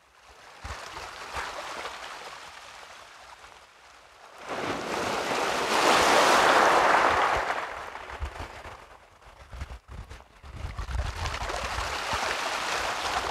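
Small sea waves washing in over a pebble beach. One wave surges up loudest about five seconds in and ebbs away, and another builds near the end.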